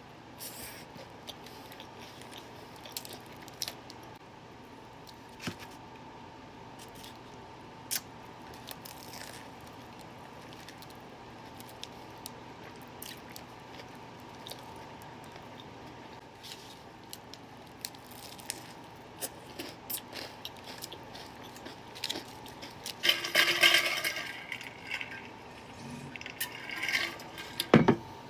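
Someone eating a burrito close to the microphone: wet chewing and lip-smacking clicks throughout, with a louder rustling burst about 23 seconds in and another near the end.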